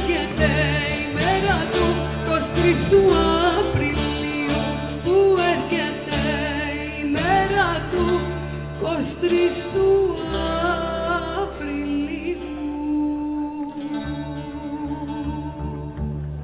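Live Cypriot folk music: a bowed viola melody with vibrato over a plucked laouto and bass, settling into long held notes near the end as the piece closes.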